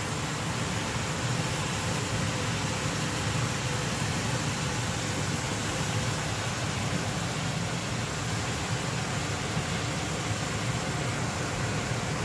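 Steady hissing of chicken pieces cooking in a steaming stainless steel pot.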